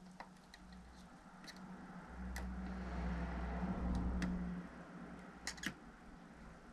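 Faint scattered clicks and taps of a soldering iron and solder wire working on a circuit board. A low hum swells for about two seconds in the middle.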